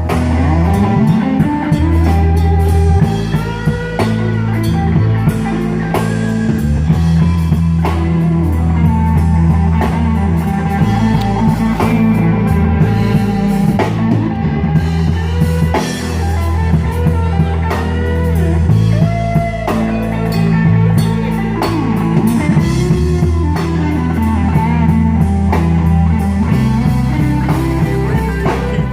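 Instrumental break of a slow country song: lead guitar playing bending melodic lines over bass and drum kit, with no vocals.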